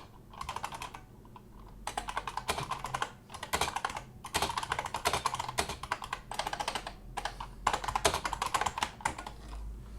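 Computer keyboard being typed on in quick runs of keystrokes, with short pauses between runs.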